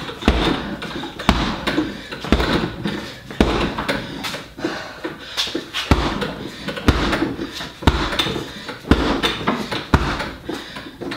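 Gloved hooks landing on a hanging heavy bag, a hard thump about once a second, about ten in all.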